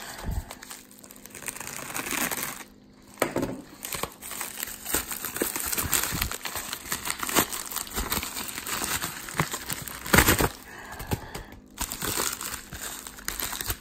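Plastic bubble mailers crinkling and rustling as they are handled and pulled apart, a dense run of small crackles with one sharp, louder crackle about ten seconds in.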